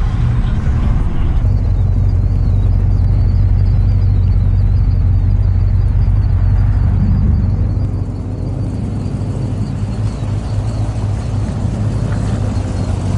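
Steady low rumble of a Chevrolet car driving, heard from inside the cabin with a window open; it eases a little about two thirds of the way through.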